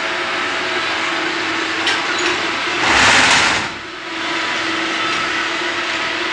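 Steady mechanical hum with a low drone, broken about three seconds in by a loud rush of hiss lasting about a second.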